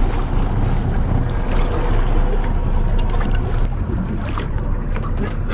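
Steady wind and water noise aboard a small fishing boat at sea, with the wind rumbling on the microphone and a few faint ticks.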